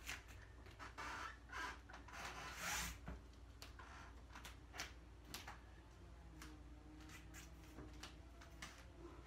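Quiet movement sounds of a barefoot dancer on foam floor mats: soft rubbing and shuffling, loudest about three seconds in, then scattered light ticks.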